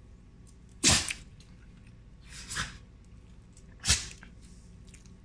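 Havanese dog sneezing: two sharp sneezes about three seconds apart, with a softer, breathier one between them.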